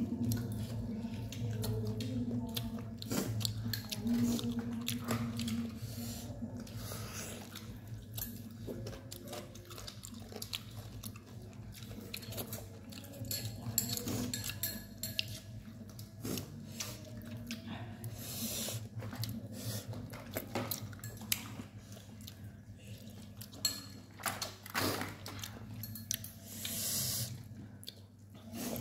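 Eating sounds: scattered light clinks and knocks of spoons and ceramic bowls, with chewing and the handling of boiled pork, over a low steady hum.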